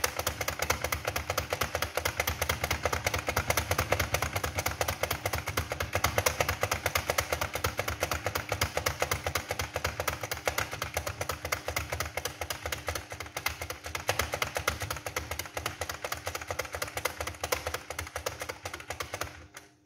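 Computer keyboard typed fast and without pause, a rapid run of many keystrokes a second that stops just at the end.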